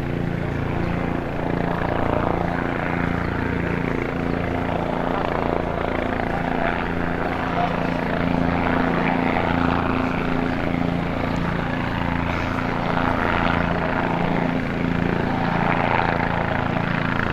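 Helicopter in flight: its rotor and turbine engine make a steady, continuous drone over a low hum.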